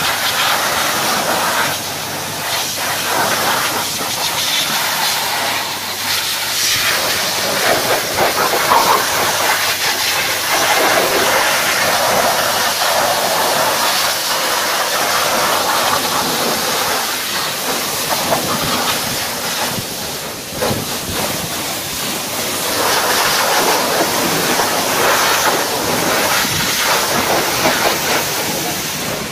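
High-pressure water jet from a car-wash lance spraying over an engine bay, a loud continuous hiss and spatter that swells and eases as the spray sweeps across the parts.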